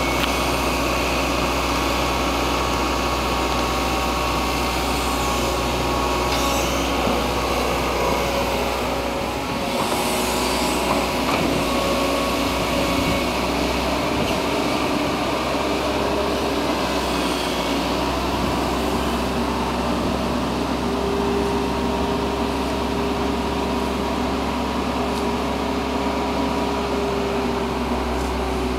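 Wheeled excavator's diesel engine running steadily.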